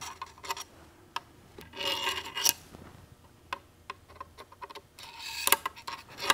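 Steel parts scraping and clicking inside a Ford Toploader 4-speed transmission's cast-iron case as the 1-2 shift rail is worked in: scattered light clicks, with a spell of scraping about two seconds in and another near the end.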